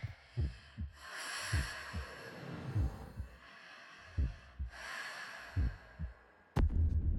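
Film sound design: a slow heartbeat of low paired thumps under two long, heavy breaths. Near the end a sharp hit cuts in and a loud low rumbling drone starts.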